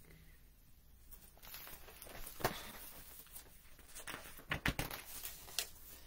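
Quiet handling noise: a few soft knocks and rustles as a hardcover picture book is lowered and moved about, with a small cluster of knocks about four and a half seconds in.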